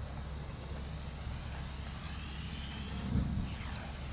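Steady low rumble, with a brief low thump about three seconds in as the condensate in a steel drum catches fire.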